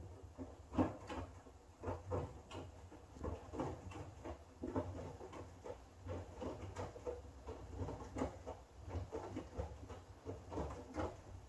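Front-loading washing machine in its wash cycle: the drum turning a wet load of bedsheets and towels, which slosh and flop over in irregular soft thumps, two or three a second, over a low steady motor hum.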